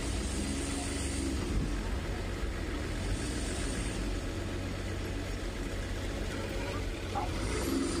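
Mahindra Bolero pickup's diesel engine running at low revs as it drives up onto a river ferry: a steady low rumble.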